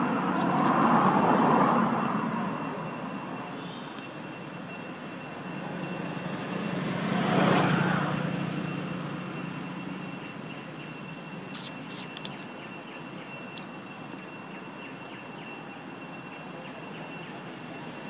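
An engine swells and fades twice, as of vehicles passing, over a steady faint high-pitched tone, with a few sharp clicks, three close together about twelve seconds in and one more shortly after.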